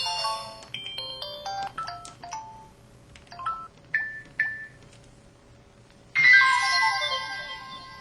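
Samsung SCH-V500 mobile phone playing its built-in sound effects through its speaker. First comes a quick run of short electronic tone jingles, then two short beeps. About six seconds in a louder, noisier effect with held tones begins.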